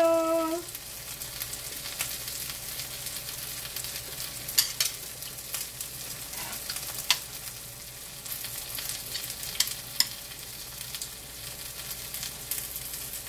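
Vegetable pancake frying in oil in a pan, a steady sizzle with a few sharp clicks scattered through it.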